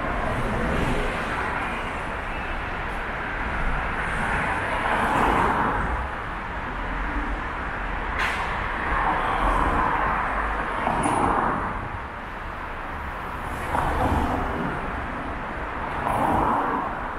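Road traffic on a rain-wet street: vehicles pass one after another, each one's tyre and engine noise swelling and fading. There is a brief sharp click about halfway through.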